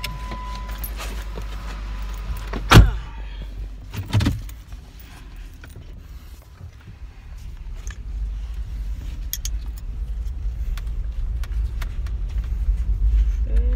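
A car door slammed shut about three seconds in, with a softer thump about a second later. Under it runs a low steady car rumble that grows louder near the end, and a steady beep cuts off in the first second.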